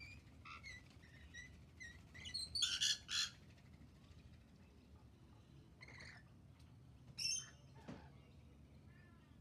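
Rainbow lorikeets calling: a run of short high chirps, then two loud shrill screeches about three seconds in, and a few more scattered calls later on.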